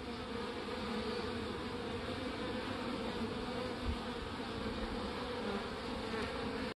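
Swarm of honey bees buzzing steadily as they fly around and into a hive entrance, with one brief low thump about four seconds in. The buzzing cuts off suddenly at the end.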